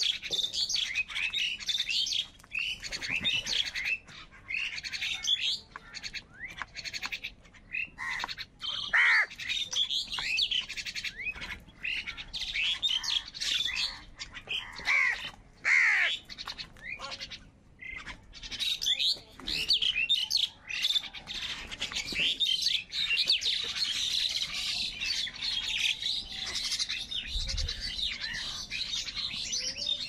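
A flock of house crows calling over one another, many short harsh calls coming thick and fast, with higher chirps mixed in.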